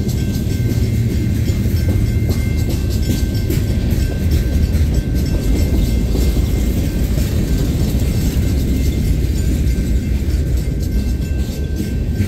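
Freight train cars rolling slowly past at track level: a steady low rumble with frequent clicks from the wheels on the rail joints, and a faint thin high whine over it.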